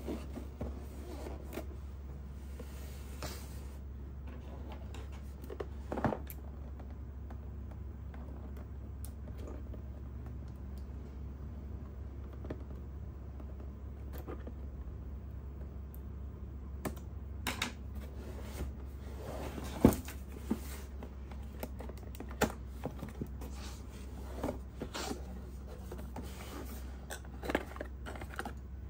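Cardboard camera-box packaging being handled and opened: scattered taps, scrapes and clicks, the sharpest about twenty seconds in, with scissors cutting through the box's seal sticker. A steady low hum runs underneath.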